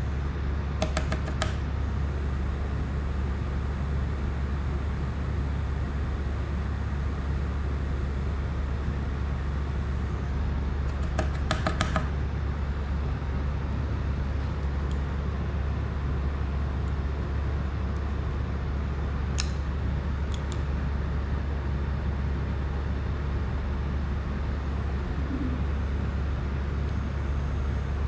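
Steady low hum with an even hiss throughout. Two short bursts of rapid clicking come about a second in and again around eleven to twelve seconds, with a couple of faint ticks near twenty seconds, from small tools and parts being handled while soldering a drone.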